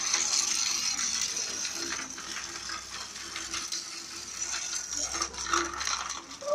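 Motorised toy train running on a plastic track set: its small motor and gears whirring, with a steady stream of plastic clicks and rattles.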